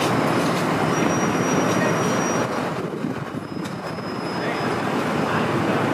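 City street noise with thin, high-pitched squeals that come and go a few times. The noise dips briefly about halfway through.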